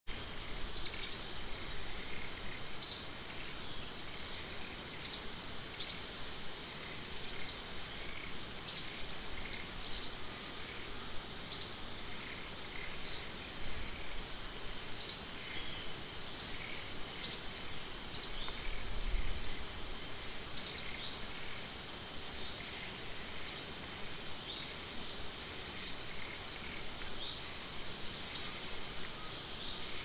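Short, high, rising bird chirps repeating roughly once a second over a steady high-pitched insect drone.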